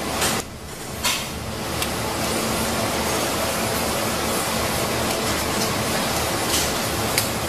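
Steady hiss and hum of workshop machinery, with a brief dip in level about half a second in and a few light clicks.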